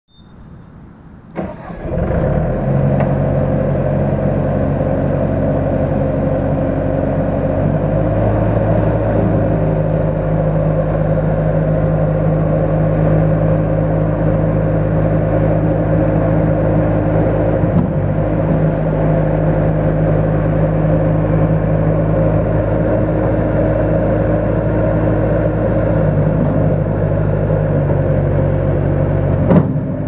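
Bobcat 873 G skid steer's Deutz diesel engine cranking and starting about a second and a half in, then running steadily. Its speed steps up about a quarter of the way through while the loader arms lift the bucket, and drops back a few seconds before the end, with a short knock just before the end.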